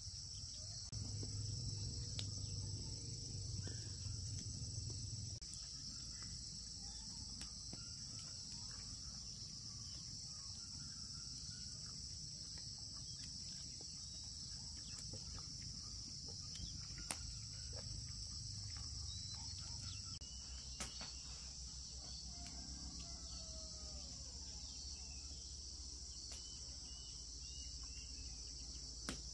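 Steady, high-pitched chorus of insects. A low hum runs from about one second to five seconds in, and there are a few sharp clicks, the loudest near the middle.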